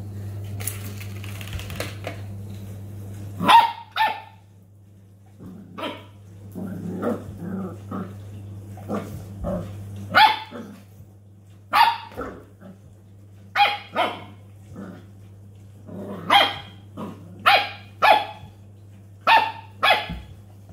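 Pembroke Welsh Corgi puppy barking in short, sharp, high yaps, about a dozen spaced out, some in quick pairs.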